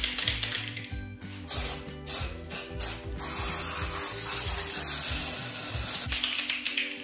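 Aerosol can of red velvet (flocking) spray: rapid rattling clicks at first, then short puffs of spray, then a continuous hiss of spray for about three seconds, and rapid clicking again near the end.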